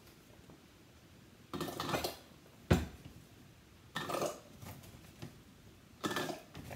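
Handfuls of sliced carrots dropping through a plastic canning funnel into a glass mason jar, in three short rattling bursts. A single sharp knock of glass or funnel comes about midway and is the loudest sound.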